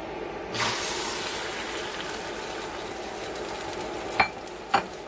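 Beaten eggs hitting oil in a hot nonstick frying pan, starting to sizzle about half a second in and going on as a steady hiss. Near the end come two sharp clinks, the emptied ceramic bowl being set down.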